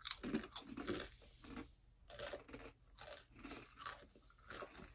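Two people biting into and chewing sweet chili flavored corn chips: faint, irregular crunching with each bite and chew.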